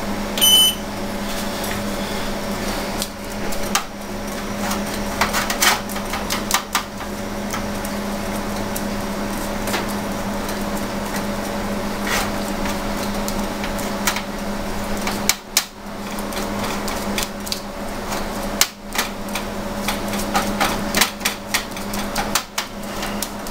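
Kitchen utensils clicking and knocking lightly and irregularly against a metal baking tray as ribs are brushed and turned, over a steady low hum.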